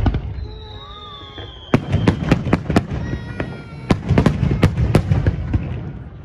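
Fireworks going off: a loud bang at the start, a whistling trail, then a rapid run of crackling bangs from about two seconds in until near the end.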